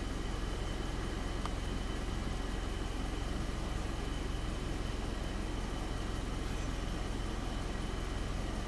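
Car engine running steadily, heard from inside the cabin as a constant low hum, with a faint steady high-pitched tone over it.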